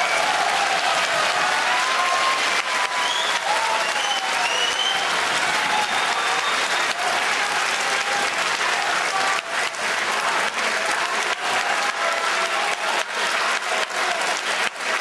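Boxing hall audience applauding, with voices calling out over the clapping in the first few seconds; in the second half the applause breaks into more distinct individual claps.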